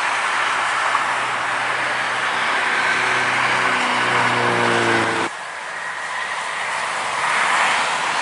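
Steady highway traffic noise from buses and cars passing on a toll road, with a low pitched hum from a heavy vehicle building in the middle. The sound drops off suddenly a little over five seconds in, then traffic noise carries on.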